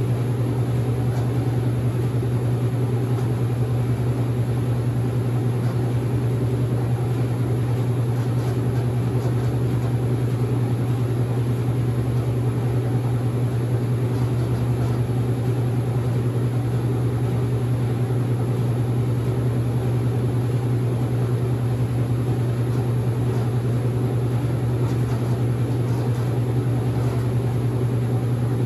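Late-1970s Maytag A806 washing machine running steadily, a constant low motor hum under an even mechanical drone.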